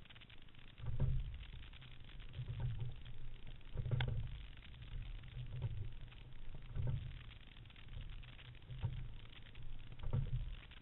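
Single racing scull being rowed through drill strokes: muffled low thuds and water slaps against the hull about once a second, picked up by a camera fixed to the boat's deck, with one sharp click about four seconds in.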